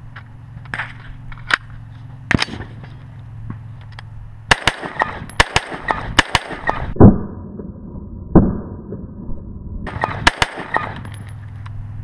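AR-15 rifle with a standard A2 flash hider firing a string of shots. The two loudest shots, each with a ringing tail, come about a second and a half apart in the middle, and a few sharp clicks of the rifle being handled come before them.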